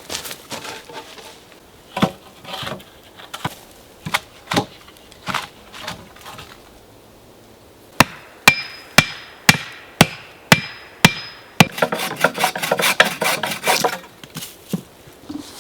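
Wooden poles knocking against a log bed frame as they are laid on it, then a run of about eight sharp, evenly spaced blows, about two a second, with a faint ring. Near the end comes a quick rattling clatter of wood on wood.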